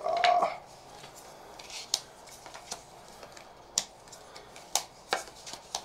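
Magic: The Gathering cards being flipped through and set down on a wooden tabletop: a few sharp card snaps and taps, spaced roughly a second apart. A brief steady tone sounds right at the start.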